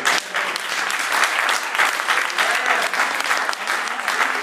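Church congregation applauding: many hands clapping in a dense, continuous patter.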